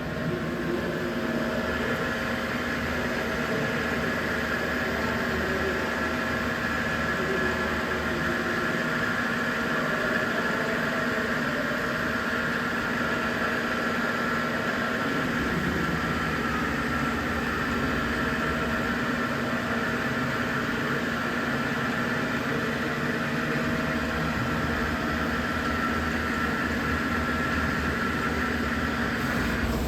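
Biglia B 1200 CNC lathe running with a steady machine hum and a higher whine; the whine drops away just before the end.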